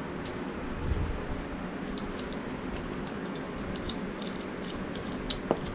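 Light metallic clicks and taps of small vise parts being worked by hand while the stiff spring is held compressed and a cotter pin is pushed through, over a steady background hum. The clicks come scattered from about two seconds in.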